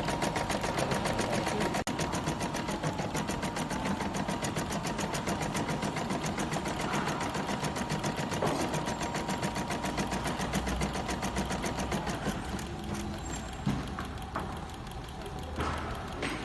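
DT9090 embroidery and sewing machine stitching at a rapid, steady rhythm. The sound thins out about twelve seconds in, with a few sharp clicks near the end.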